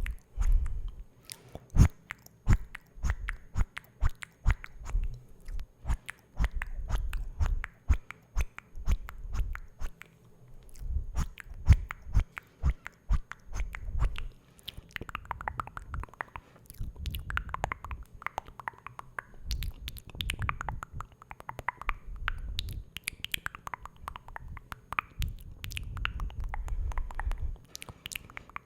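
Close-miked ASMR mouth sounds: rapid wet clicks and smacks, over soft low thumps and brushing from a brush touched against the camera. From about halfway through, wavering wet mouth noises join the clicks.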